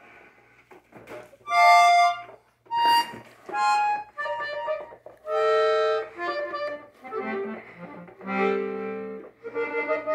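New Gabbanelli norteño button accordion sounding a string of separate chords and single notes, each held for about a second with short gaps between, as a beginner presses buttons and works the bellows without playing a tune.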